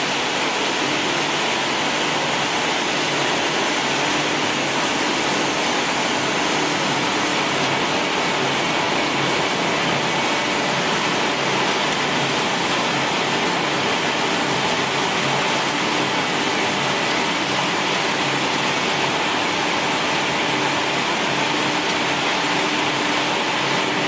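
Grass-feed pellet machinery running: a steady, even mechanical noise with a faint hum under it, unchanging throughout.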